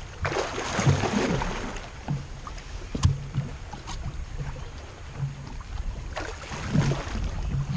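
Wind buffeting the microphone over water lapping against a small fishing boat, with a sharp knock about three seconds in.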